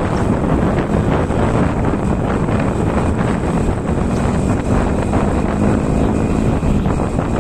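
Wind buffeting the microphone of a moving vehicle, over a steady rumble of engine and road noise. A low hum comes up faintly about halfway through.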